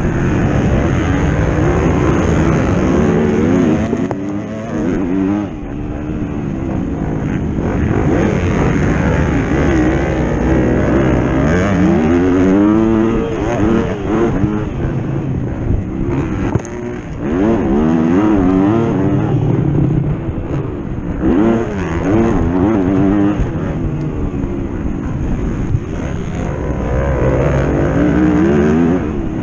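Racing vehicle engine at high revs, its pitch climbing and dropping again and again as it accelerates, shifts and backs off through the course. There are brief dips in loudness about five seconds in and again around sixteen seconds.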